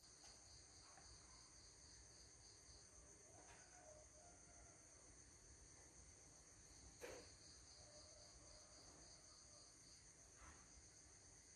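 Near silence, with faint steady insect chirring in the background and one faint click about seven seconds in.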